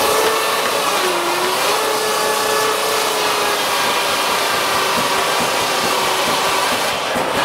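Steam-powered sawmill running, its saw giving a steady whine over a dense noise of machinery; the whine dips in pitch briefly about a second in, then steadies.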